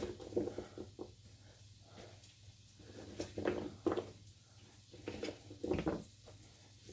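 Garlic cloves being prepared by hand on the counter: a few soft, irregular knocks and rustles.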